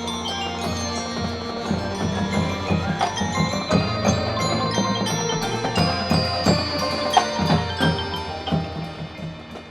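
Marching band music dominated by the front ensemble's mallet percussion: marimba and glockenspiel notes with chime-like strokes over sustained low tones. It gets quieter in the last second or so.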